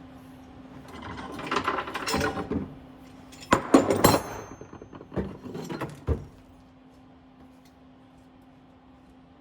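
Steel hood hinge from a 1961-66 Thunderbird being worked back and forth by hand, its pivot bearings clicking and grating in several bursts, loudest in the middle, as each bearing is checked for looseness.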